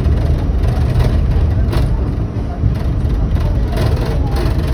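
New York City subway train running on the rails, heard from inside the car: a steady low rumble with occasional faint clicks from the wheels and track.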